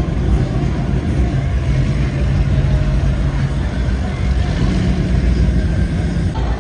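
Performance-boat engines running at low revs: a loud, steady, deep engine note.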